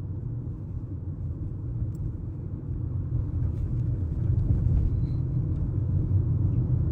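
Low, steady rumble that slowly grows louder, with a few faint ticks, in a gap with no music.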